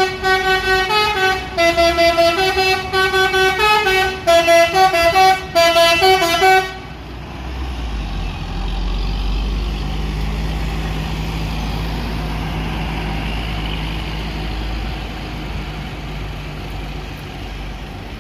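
A departing bus's multi-note musical horn plays a quick tune, stepping between notes, and cuts off suddenly about seven seconds in. Then the bus's diesel engine rumbles steadily as it pulls past, easing slightly near the end.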